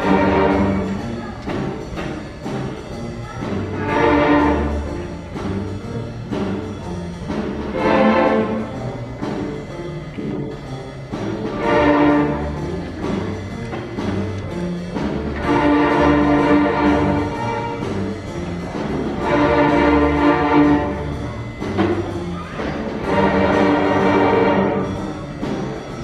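School string orchestra of violins, cellos and double basses playing a piece, with loud swelling accents returning about every four seconds.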